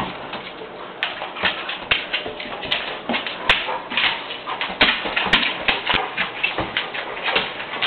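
Chesapeake Bay Retriever puppy whimpering in distress at wearing a chain collar for the first time, amid many short sharp clicks.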